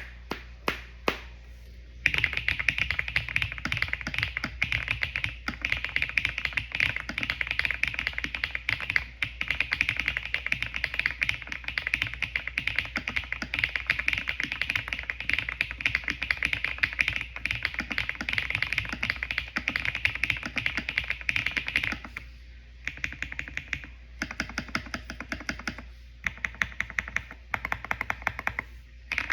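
Typing on a mechanical keyboard: a few single key presses, then fast, continuous typing from about two seconds in, breaking into shorter bursts with pauses near the end.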